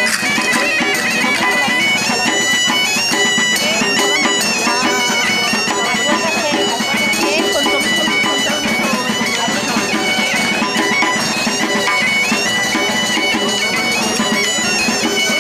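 Asturian bagpipe (gaita) playing a continuous melody, its high notes stepping up and down.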